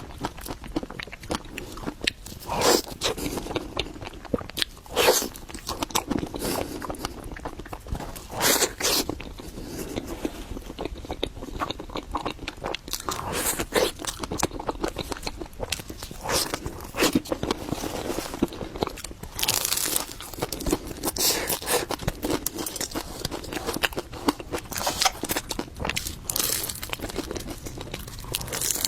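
Close-miked eating: a person biting and chewing matcha mille crepe cake, with irregular wet mouth clicks and several louder bites along the way.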